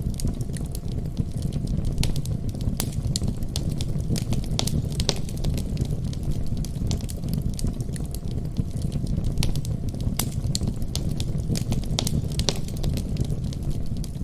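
Wood fire crackling in a fireplace: frequent sharp pops and snaps scattered over a steady low rumble.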